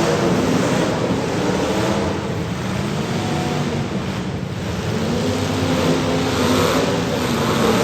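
Derby cars' engines running and revving under a steady noisy rush, with no single impact standing out.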